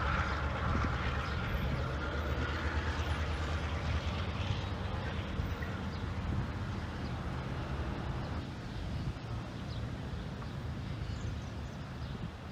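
Federal Railroad Administration inspection train rolling away on the main line: a steady low rumble of wheels and running gear that slowly fades as it recedes.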